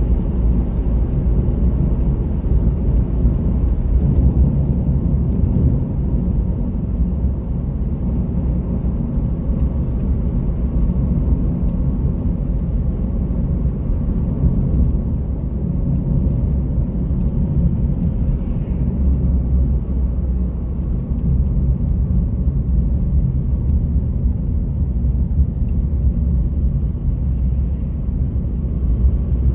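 Car interior noise while driving: a steady low rumble of engine and tyres on the road, heard from inside the cabin.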